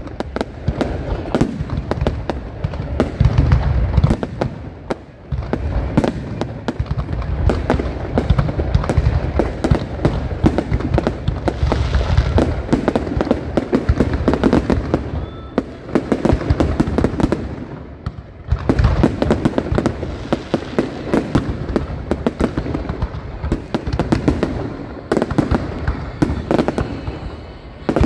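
Aerial fireworks display: a dense, continuous barrage of booming shell bursts and sharp crackling, with brief lulls about five seconds in and around eighteen seconds.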